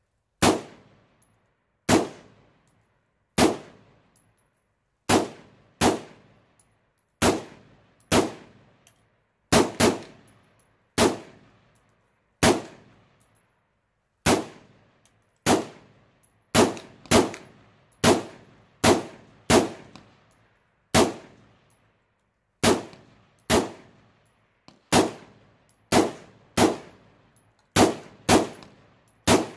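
A 7.5-inch-barrel AR-15 pistol firing .223 rounds semi-automatically, about thirty shots at an uneven pace of one every half-second to two seconds. Each shot is followed by a short ringing echo under the range's metal roof.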